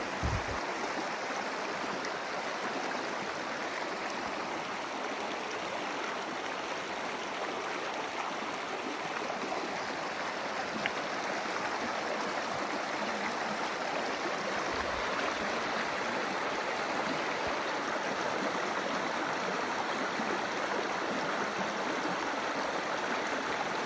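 Small mountain stream running fast over stones in a shallow rocky bed: a steady, even rush and babble of water.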